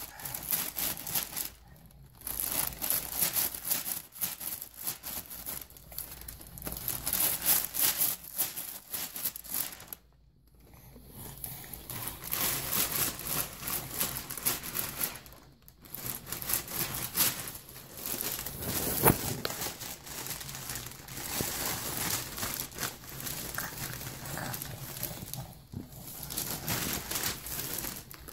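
Continuous crinkling and rustling of the sheeting under a baby as he shifts about on an exam table. It stops briefly a few times, and there is one sharper crackle about two-thirds of the way through.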